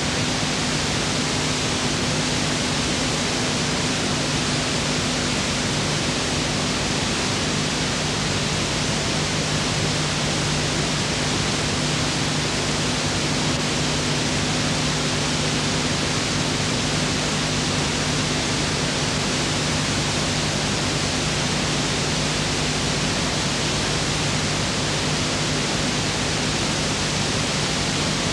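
Steady hiss with a low, steady electrical hum beneath it, unchanging throughout: the noise floor of an old film transfer that carries no sound of its own.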